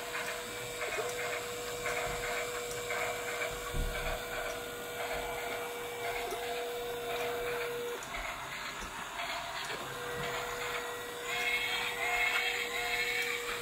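A small electric motor whirring with a steady hum that drops out for a couple of seconds partway through, under a light mechanical clatter that grows busier and higher near the end.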